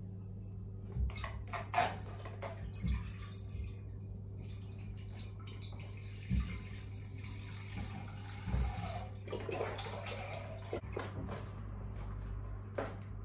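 Milk being poured into a saucepan: a steady pouring hiss through the middle, with a few short knocks of the container and pot, over a low steady hum.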